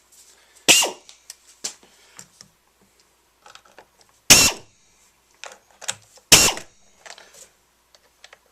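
Hard plastic and metal parts of a chainsaw being handled during reassembly: three sharp knocks, about a second, four seconds and six seconds in, with light clicks and rattles between them.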